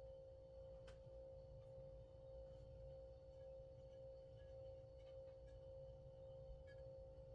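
Near silence: a faint steady hum, one even tone with a low rumble beneath, and a few faint light clicks.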